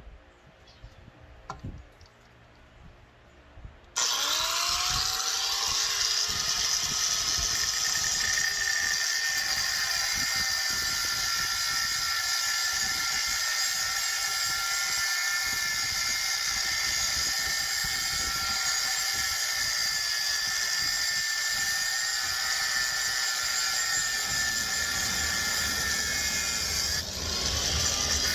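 A handheld power tool spins up about four seconds in and runs steadily, cutting through the cast-iron handle of a cauldron lid.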